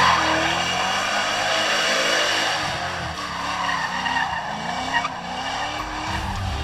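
Muscle car doing a burnout: its rear tyres squeal and slide as it spins in circles, and the engine revs rise and fall under the wheelspin.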